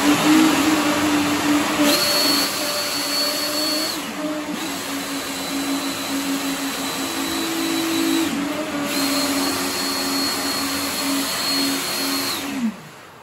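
Electric ducted fans of a DIY hovercraft running steadily, a hum over rushing air. Twice a high whine joins in, for about two seconds and then about four, as the sideways lateral thrust fans come on and turn the craft, and near the end all the fans spin down with a falling pitch and stop.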